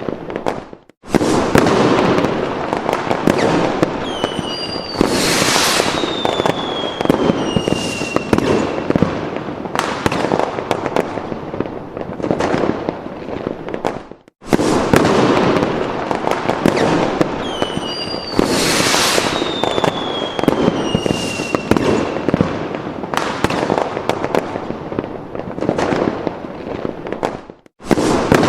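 Fireworks sound effect: dense crackling bangs with whistling rockets sliding down in pitch, looped so that the same stretch repeats about every 13 seconds, each loop starting after a brief dropout.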